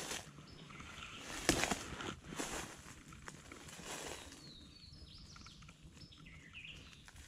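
Footsteps of a person walking outdoors, a step about every second in the first half. Faint bird chirps follow in the second half as the steps pause.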